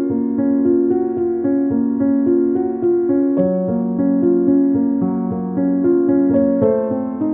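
Background piano music: an even run of notes over a bass that changes a few times.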